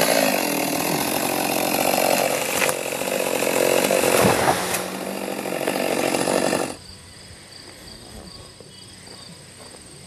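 Two-stroke gas chainsaw cutting into the base of a large tree, the engine running under load in the wood. It cuts off abruptly about seven seconds in, leaving faint insects chirping.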